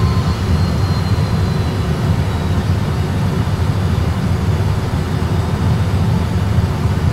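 Steady low rumble of an Airbus A320's engines at idle and the airframe rolling, heard inside the cockpit as the airliner taxis off the runway after landing.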